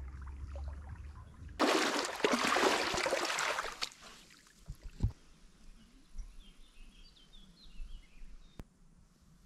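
A loud rushing noise for about two seconds, then quiet outdoor ambience with a few short, high bird chirps.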